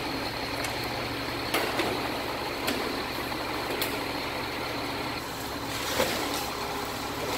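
Military cargo truck's engine idling steadily, with a few sharp knocks as someone climbs into the truck bed and handles cargo.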